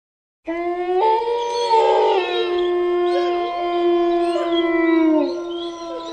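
Horror sound effect of long, drawn-out howling that starts about half a second in. One steady held tone runs throughout, with other wavering howls gliding up and down over it.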